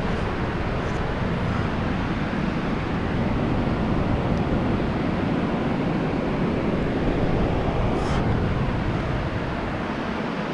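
Wind buffeting the camera's microphone, a steady low rumble, with a brief scrape about eight seconds in.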